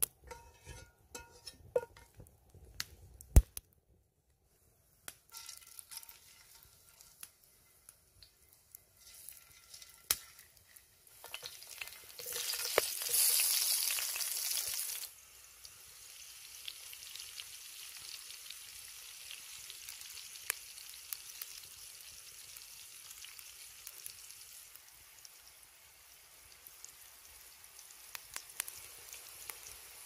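Potatoes frying in hot lard in a cast-iron skillet over a campfire. A loud burst of sizzling lasts a few seconds around the middle, then settles into a steady, quieter sizzle with occasional pops. Near the start come a few sharp clicks from the metal spatula against the pan.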